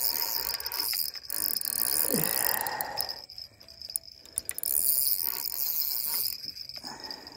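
Crickets chirping in a steady high drone. Over it come two longer bursts of rustling and scraping close to the microphone as an arm and a fishing rod's spinning reel are handled.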